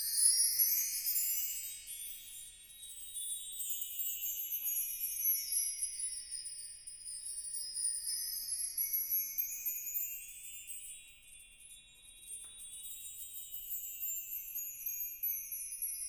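High-pitched metal percussion played in rapid, shimmering runs. The pitch sweeps up and down in slow waves of a few seconds each.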